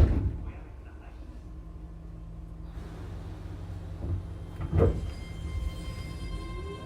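Keio 7000 series electric train standing with a low rumble, two heavy thuds that fit its doors closing, then the traction inverter starting up: a cluster of steady whining tones appears about five seconds in and one begins rising in pitch as the train moves off.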